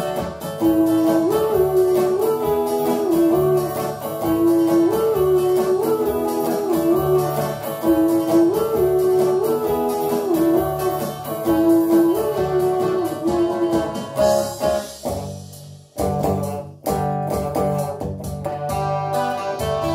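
Instrumental break of a pop song with electric guitar, bass and a lead melody repeating a short rising-and-falling phrase; the music thins out and stops about 14 to 16 seconds in. A new guitar-led song intro then starts about 16 seconds in.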